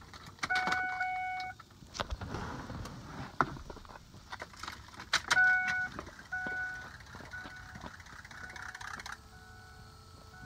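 A vehicle's warning chime sounding in pitched tones, among keys jangling and the clicks of a key being worked in the ignition. A long tone comes near the start and another about five seconds in, then shorter repeated beeps.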